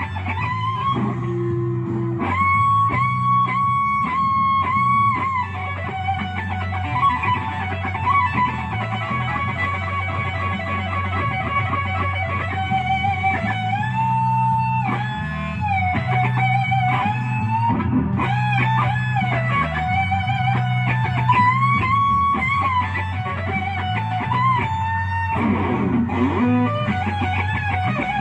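Electric guitar playing a slow blues lead with long held and bent notes over a steady bass line.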